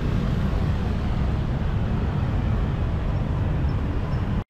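Steady rumble of city street traffic, motorbike and car engines passing through an intersection. It cuts off abruptly near the end.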